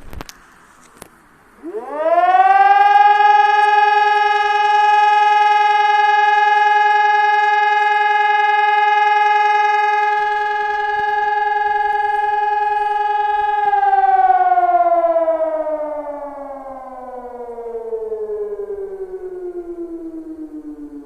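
Fire-brigade alarm siren winding up quickly, holding one steady tone for about twelve seconds, then winding down in a long falling glide. It is one tone of the siren alarm calling out the fire brigade.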